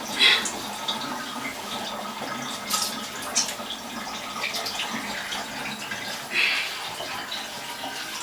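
Water splashing in a bathtub as a small wet dog is scrubbed by hand, with a few short louder splashes.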